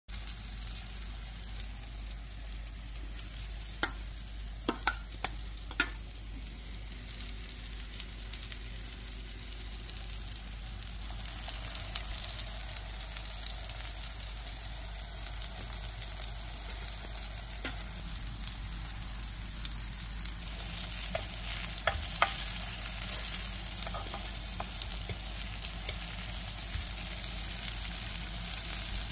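Food frying and sizzling in hot oil, a steady hiss that grows louder in the last third. A few sharp clicks sound over it, four in quick succession about four to six seconds in and a couple more past twenty seconds.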